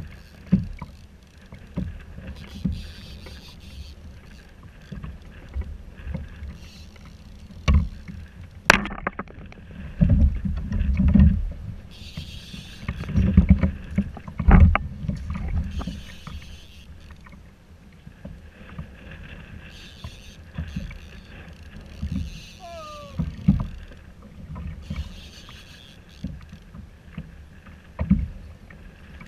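Lake chop slapping against a kayak's plastic hull, with wind on the microphone: irregular low thumps and splashy hiss, heaviest around the middle.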